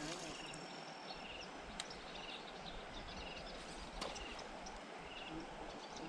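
Outdoor ambience: a steady background hiss with a short, high chirp repeating about once a second, and a couple of faint clicks.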